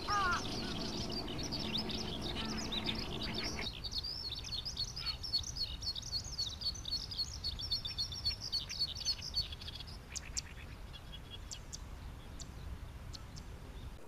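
Eurasian skylark song: a long, fast, unbroken high warbling that stops about ten seconds in, leaving a few faint scattered chirps. A short lower call sounds right at the start.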